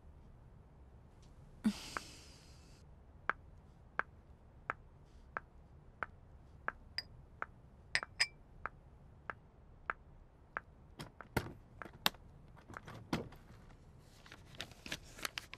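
Footsteps of a woman in low-heeled sandals on a polished tile floor, a faint even click about one and a half times a second. There is a brief scrape near the start, and a few heavier knocks as she settles into a carved wooden armchair.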